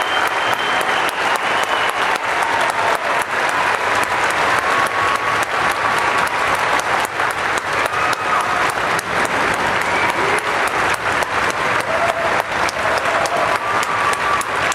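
A large crowd applauding: dense, steady clapping that does not let up, a standing ovation.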